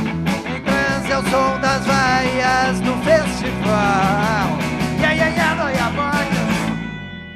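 Live rock band playing electric guitars and bass guitar to a steady rhythm, with a wavering melody line over it; the music dies away near the end.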